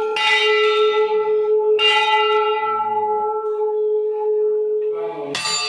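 Hanging metal temple bell rung by hand, struck three times: at the start, about two seconds in, and near the end. Each stroke leaves a long, steady ring that carries on between strikes.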